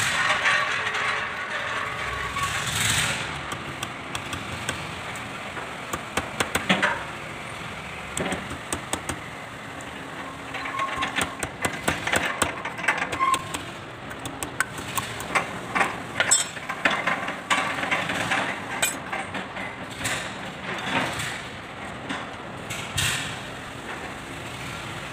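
Metal parts of a Kubota L2201 tractor's front axle hub clinking and knocking as they are handled and taken apart to get at the ball bearing and oil seal: short sharp clicks coming in irregular clusters, over a steady background hum.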